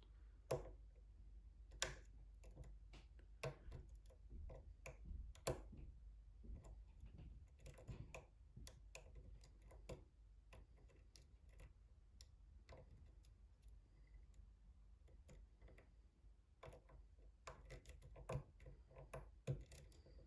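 Faint, irregular clicks and ticks of a lock pick working the pins of a pin tumbler lock under tension, probing the pins for counter rotation while the lock sits in a false set.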